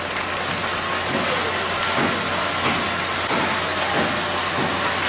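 Loud steady hiss, like air or spray under pressure, over a low hum; it starts abruptly and cuts off suddenly after about five seconds.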